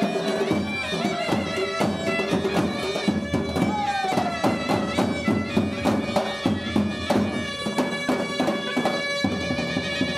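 Armenian folk dance music: a reedy wind melody over a held drone, with a steady drum beat.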